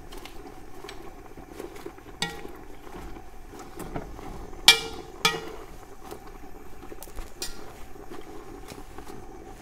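A metal spoon stirs and turns cowpea leaves blanching in a large metal pot, with soft scraping and a few sharp, ringing clinks against the pot. The loudest clink comes a little under five seconds in.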